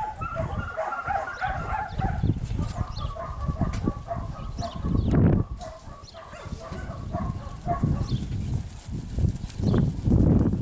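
A dog yipping in quick runs of short, high calls, dying away about eight seconds in, over a loud low rumble.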